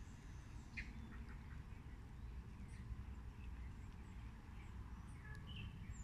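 Faint, scattered bird calls, a few short chirps about a second in and again near the end, over a low steady rumble.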